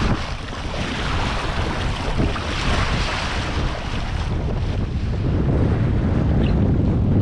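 Water rushing and splashing along a sailboat's hull as it sails through choppy water, with wind buffeting the microphone. After about four seconds the splashing hiss fades and a low wind rumble takes over.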